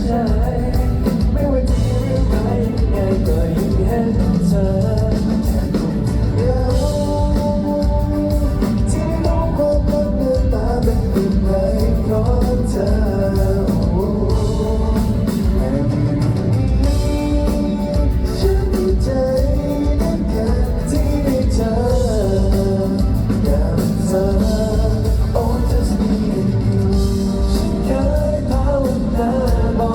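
A Thai pop song sung live over backing music with drums and guitar.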